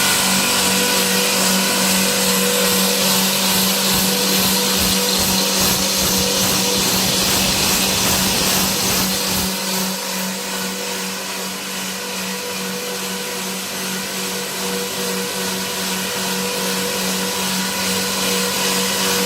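Dry rawhide powder grinder running: a loud, steady motor hum with a dense high hiss, rough and grainy for the first half, then a little quieter and smoother from about ten seconds in.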